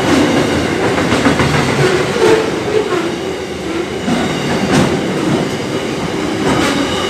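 A long freight train's wagons rolling past at close range, a steady rumble with the wheels clicking over the rails now and then.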